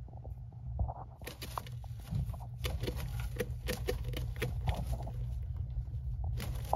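A boa constrictor and the live rat in its coils shifting on wood-chip bedding: a run of quick scratchy clicks and rustles starting about a second in, with a few short squeaky notes in the middle.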